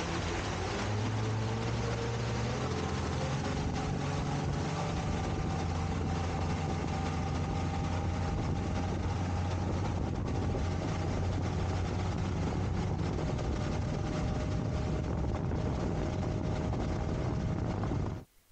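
Motorboat engine running under way, its pitch rising over the first few seconds as it speeds up and then holding steady, over a constant rushing noise. The sound cuts off suddenly near the end.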